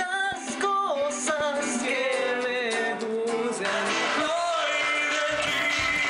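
A young man singing a high melody, thin and with no bass. About five seconds in it cuts to a fuller recording with an electric guitar.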